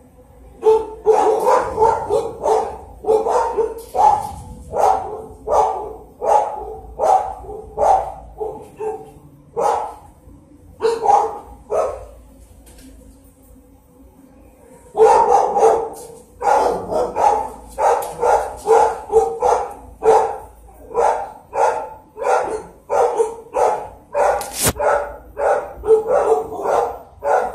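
A dog barking over and over, about two barks a second, in two long runs broken by a pause of about three seconds in the middle.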